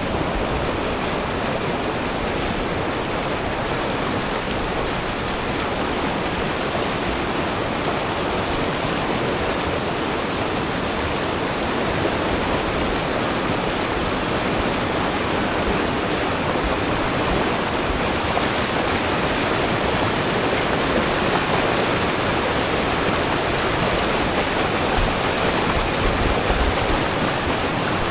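The Big Thompson River's whitewater rapids rushing over boulders: a steady, unbroken noise of churning water.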